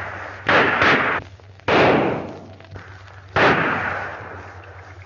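Gunfire in a shootout: four shots, two in quick succession about half a second in, then one near two seconds and one at about three and a half seconds, each with a long echoing decay.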